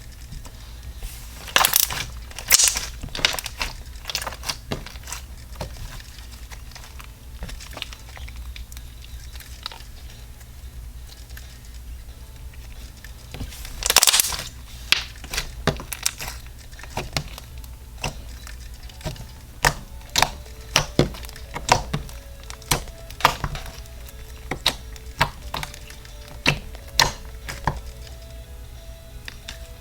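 Floam slime being squeezed and stretched by hand, giving off irregular sharp pops and crackles as air pockets burst and the foam beads snap, with a louder cluster of pops about 14 seconds in.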